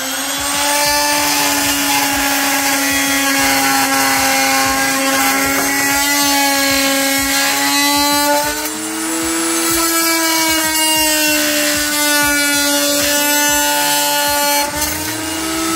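Silverline 300 W corded oscillating multi-tool running at a steady pitch as its blade cuts through an 18 mm thick pallet board. It comes up to speed at the start, its pitch lifts slightly about halfway through, and it starts to wind down at the very end.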